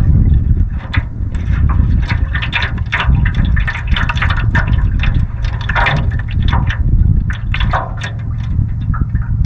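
Small waves lapping and slapping against a canoe's hull in quick, irregular splashes, over a steady low rumble of wind on the microphone.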